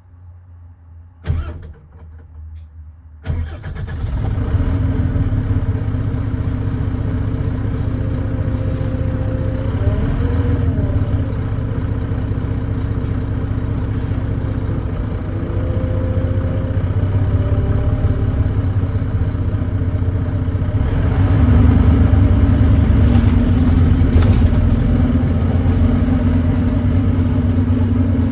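Volvo D9B 9.3-litre six-cylinder diesel of a Volvo B9TL double-decker bus starting up about three seconds in after a sharp click, then running steadily and getting louder again near the end. The engine has an exhaust leak and runs with a thrashy sound.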